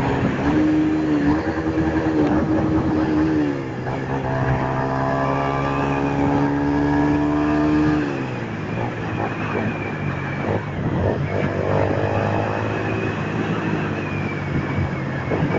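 Yamaha Fazer 150's single-cylinder four-stroke engine through an aftermarket Roncar sport exhaust while the bike is ridden. It holds a steady note under throttle, dips briefly about three and a half seconds in, drops sharply about eight seconds in as the throttle comes off, then rises again near the end.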